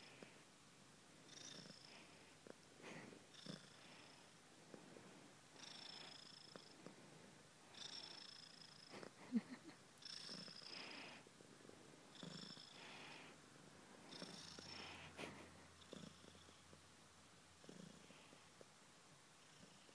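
Long-haired calico kitten purring softly, swelling and fading roughly every two seconds with its breathing. A single sharp click about nine seconds in.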